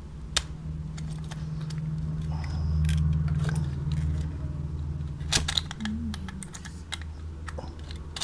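Scattered small clicks and scrapes of fingers working at a stuck fitting in a plastic wall outlet box, with a cluster of sharper clicks about five seconds in. A steady low hum runs underneath.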